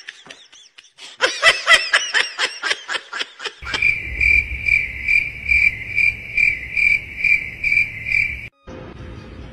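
Quick repeated bursts of laughter for the first few seconds, then a cricket chirping: a high chirp pulsing about two and a half times a second that cuts off suddenly near the end.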